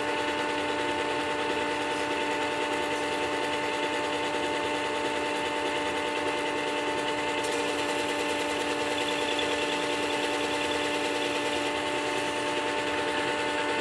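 Work Sharp WS3000 sharpener running with a steady motor hum, while an antique Stanley plane iron's bevel is held through its tool rest against the 1000-grit abrasive under the spinning glass wheel, giving an even grinding hiss.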